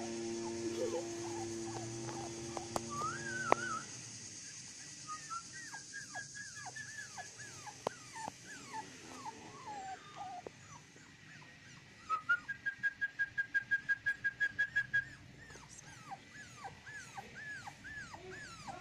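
Young cockapoo puppies whimpering and whining, many short high whines that rise and fall. A steady hum sounds under them for the first few seconds and cuts off about four seconds in. Past the middle comes a quick, even run of about a dozen short high cries at one pitch, the loudest part.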